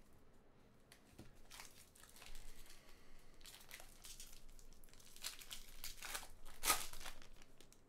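Foil wrapper of a baseball card pack crinkling as it is torn open by hand, with a sharper rip near the end.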